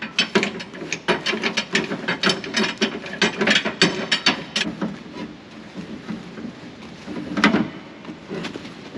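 Pickup truck's underslung spare-wheel winch being cranked with a winding bar: rapid clicking and ratcheting as the chain hoists the spare tyre up under the truck. The clicks thin out after about five seconds, and a louder clunk comes about seven and a half seconds in.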